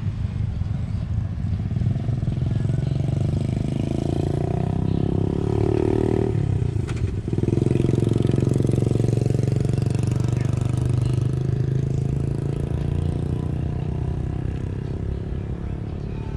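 A motorcycle engine running close by. Its pitch rises over a few seconds, drops sharply about seven seconds in, then runs on steadily.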